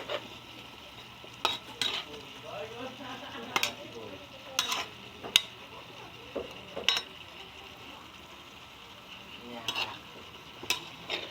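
Vegetables frying in a pan with a steady sizzle while a utensil stirs them, knocking and scraping against the pan about a dozen times at uneven intervals.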